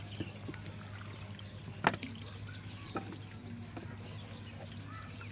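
Paddling a small wooden boat on still water: a few sharp wooden knocks of the paddle against the hull, the loudest about two seconds in and a lighter one a second later, over a steady low hum.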